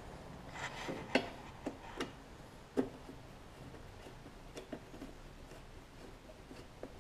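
Hand nut driver turning a bolt into a mower engine's shroud: three sharp clicks under a second apart, starting about a second in, then fainter scattered ticks of metal tool on bolt and housing.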